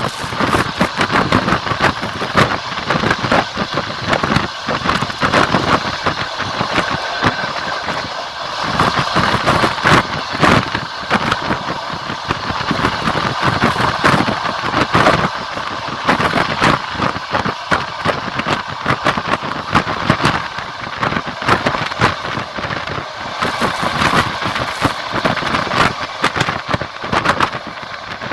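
Train in motion heard from a carriage window: a steady rolling rumble with a dense run of wheel clicks and knocks on the rails.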